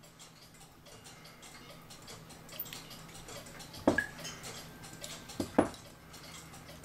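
Small brass clock-movement parts clicking and clinking against each other and the plate as they are handled. There are faint light clicks throughout, and a few sharper metallic clinks, the first about four seconds in with a brief ring, then two close together a second and a half later.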